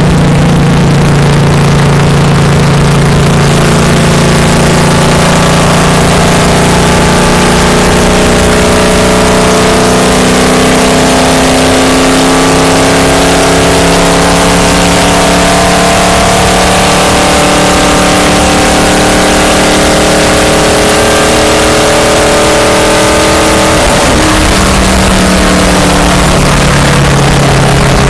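Stock car's V8 engine running hard at high revs, heard from inside the car, very loud over a constant rush of wind and road noise. Its pitch climbs slowly over the first dozen seconds, then holds. It breaks and drops briefly near the end before picking up again.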